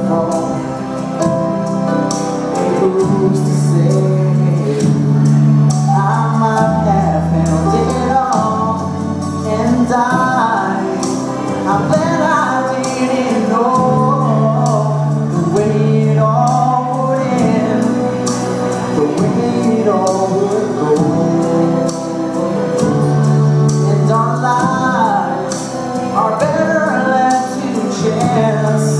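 Live country music: a man singing into a handheld microphone over an accompaniment with steady sustained bass notes.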